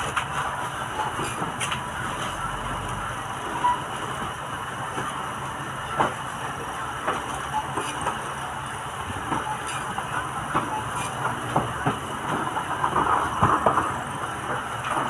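Shop checkout din: a steady background hum and murmur with scattered knocks and clinks of goods such as canned drinks being handled on a counter, more of them near the end.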